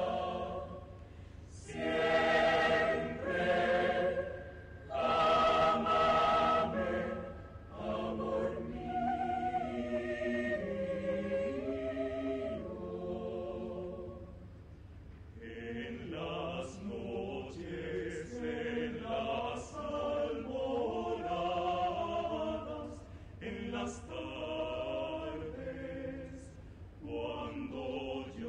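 Mixed choir of men's and women's voices singing in several parts, with two loud swells in the first few seconds, then softer held phrases.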